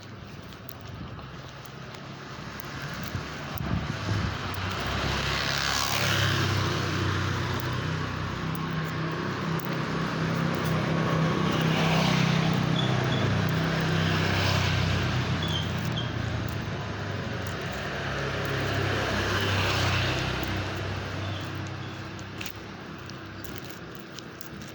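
Road traffic: motor vehicles passing one after another, with three swells that build and fade, and a low engine hum through the middle.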